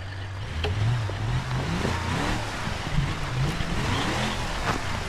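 Simulated engine sound effect for a Carisma SCA-1E Coyote RC crawler, its pitch rising and falling repeatedly like a truck engine being revved, over a steady rough hiss.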